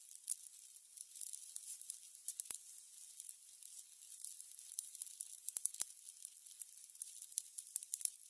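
Burning candles crackling, with a dense, irregular run of small high-pitched pops and ticks over a faint hiss, and a few sharper pops now and then.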